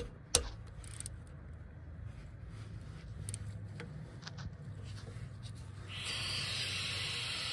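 A socket ratchet clicks a few times on the coolant bleed screw of a Polaris Ranger 900XP cylinder head as it is loosened. About six seconds in, a steady hiss starts: trapped air escaping from the opened bleed screw of the warm cooling system.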